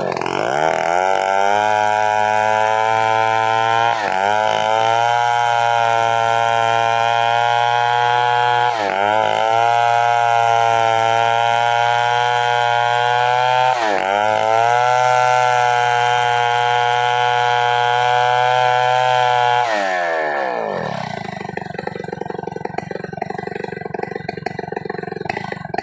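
Chainsaw engine running at high revs with three brief dips in pitch about five seconds apart. It then drops back to a lower, rougher idle near the end.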